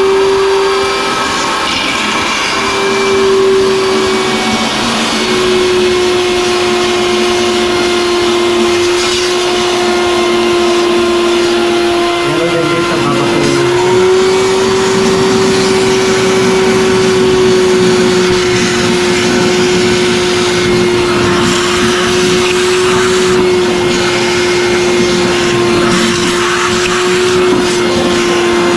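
Wet/dry vacuum running with a steady whine while its hose sucks the leftover water out of a toilet bowl and then out of the tank. The pitch shifts slightly about halfway through, as the hose moves.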